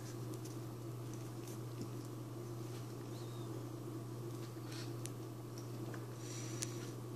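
A small Chorkie puppy licking and chewing at a chunk of orange: faint, scattered wet smacks and clicks. A steady low hum runs underneath.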